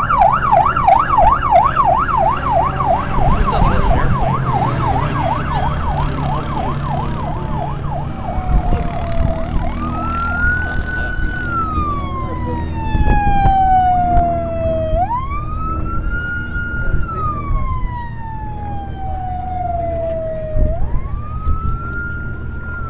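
Emergency vehicle siren on a fast yelp, rising and falling a few times a second. About eight seconds in it changes to a slow wail that climbs quickly, holds, then slides slowly down, three times. A low engine rumble runs underneath.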